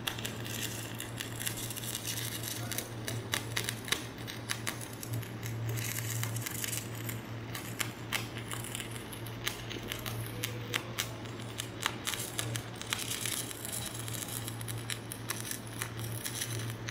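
Stick-welding arc crackling and sputtering steadily as an electrode burns along a bead, over a steady low hum.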